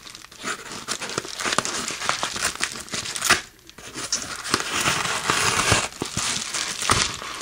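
Manila paper mailing envelope crinkling and tearing as it is cut open with a serrated knife and pulled apart by hand, with a brief lull near the middle.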